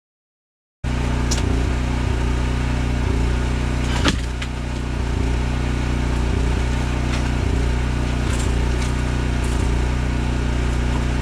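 An engine running steadily at constant speed, cutting in abruptly just under a second in, with a single sharp click about four seconds in.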